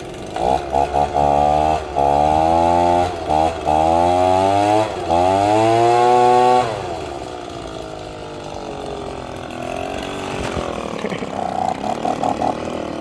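Two-stroke leaf blower engine starting and running at high revs, stumbling and cutting out briefly several times and revving up, then dropping to a quieter, uneven idle about seven seconds in. It runs rough, which the owner puts down to the fuel mixture needing adjustment.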